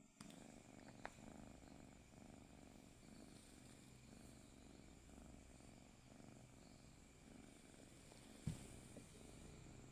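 Sleeping domestic cat purring faintly and steadily. A short click comes about a second in, and a brief low thump near the end.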